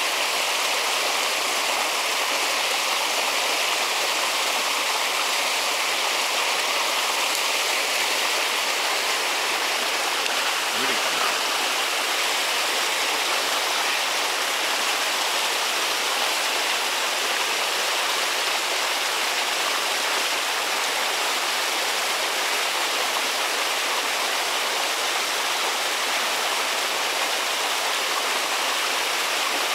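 Steady rush of flowing water, an even hiss with little low end.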